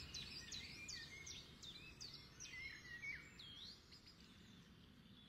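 Several birds calling in short, quick, sweeping chirps and whistles that overlap, over a faint low background rumble. The calls thin out after about three seconds and the whole sound fades down.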